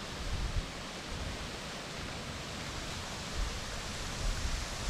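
Steady outdoor noise haze, typical of wind on the microphone, with uneven low rumbling gusts and no distinct events.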